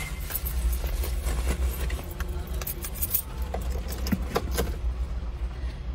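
Rustling and scattered light clicks of small objects and a phone being handled inside a car, over a steady low rumble.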